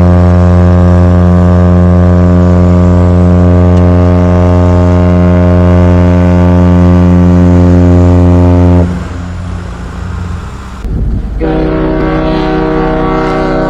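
Ship's horn sounding one long, low, steady blast that cuts off about nine seconds in; after a short pause a second, higher-pitched ship's horn starts and holds to the end. Ships sound their horns like this as they are run aground on the beach for scrapping.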